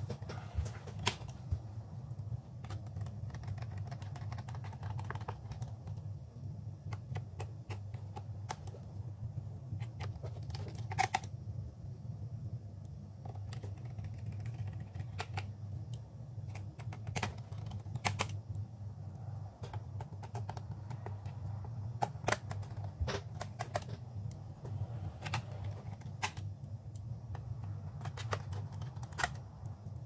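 Irregular small clicks and taps of a screwdriver and screws against a laptop's plastic bottom cover as the cover screws are driven back in, over a steady low hum.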